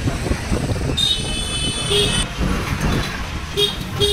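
Riding a motor two-wheeler through street traffic: a steady low rumble of engine and wind, a shrill horn-like tone lasting about a second from about a second in, then short vehicle horn beeps near two seconds and twice near the end.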